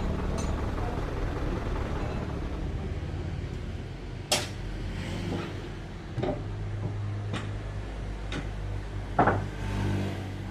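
A steady low engine hum, as of sawmill machinery running at idle, with five sharp knocks about a second apart from about four seconds in, the first and last the loudest.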